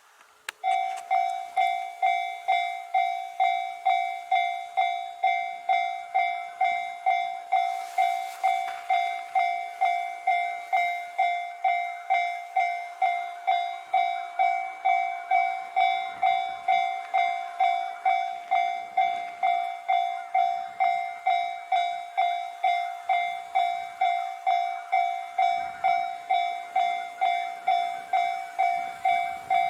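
Japanese level-crossing warning bell ringing its rapid two-tone 'kan-kan' alarm at an even beat, a bit under two strikes a second. It starts about half a second in: the crossing is warning of an approaching train.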